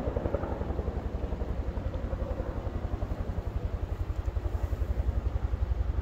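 Helicopter flying nearby: a steady, fast, low beat from its rotor.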